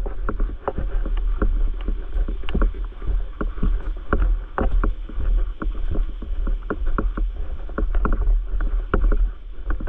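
Sea water splashing and sloshing close to the microphone, with many irregular sharp slaps several times a second over a steady low rumble.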